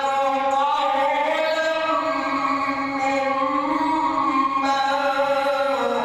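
A man reciting the Quran in slow, melodic tajweed chant. He draws out one long phrase whose pitch glides slowly up and down and falls near the end.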